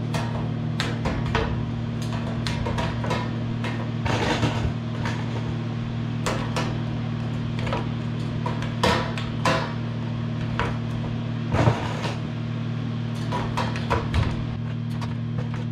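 Plastic milk-sample vials clicking and tapping as they are set one by one into a perforated stainless steel sample tray, an irregular run of light knocks, over a steady low hum.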